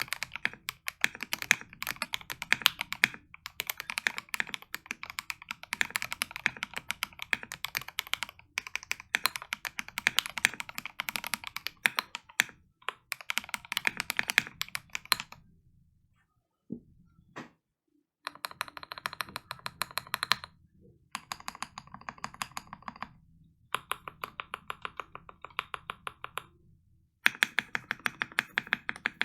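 Typing on a Melgeek Mojo68 keyboard with lubed Gateron Pro Yellow linear switches and AKKO ASA-profile keycaps: fast runs of key clicks in bursts. A pause of a few seconds about halfway through, then typing resumes in shorter bursts with brief gaps.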